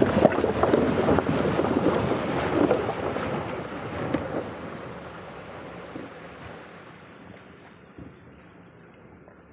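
Water splashing and churning around the tyres of a Maruti Suzuki Alto 800 as it drives through a shallow, rocky river. The sound fades steadily as the car pulls away and out of the water.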